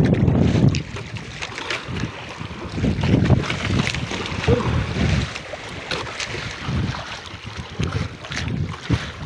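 Wind buffeting the microphone in irregular gusts, with choppy sea water slapping and splashing against an outrigger boat's hull and floats.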